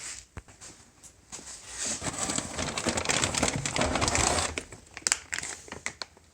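Crinkling, rustling handling noise, loudest from about two to four and a half seconds in, followed by scattered light clicks and knocks.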